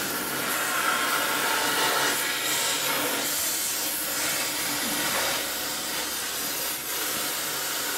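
Gas cutting torch burning with a steady hiss.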